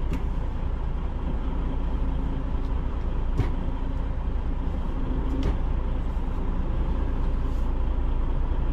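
Semi-truck diesel engine idling steadily, a constant low rumble. Two brief clicks come about three and a half and five and a half seconds in.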